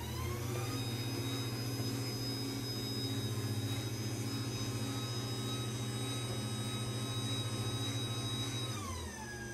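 CMX garage door opener's motor running the door closed. Its whine rises in pitch as it soft-starts, runs steadily, then drops to a lower pitch near the end as the opener slows down for the end of travel.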